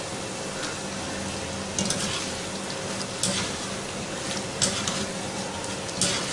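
Zeera papri dough rounds frying in hot ghee in a steel pan, with a steady sizzle. A wire-mesh skimmer clinks and scrapes against the pan four times as the pieces are turned.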